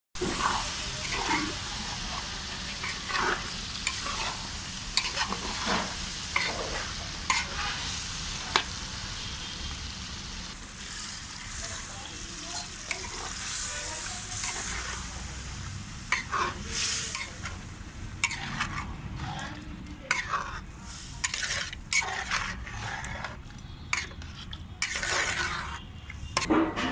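Chicken curry sizzling and frying in a cooking pot, stirred with a spoon that scrapes the pot again and again.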